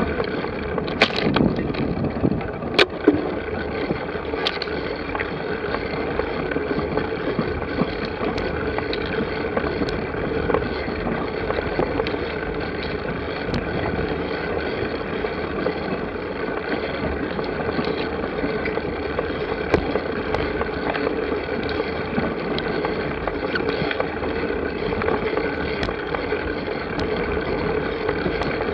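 A steady, even noise with a few sharp clicks in the first three seconds and faint ticks scattered after.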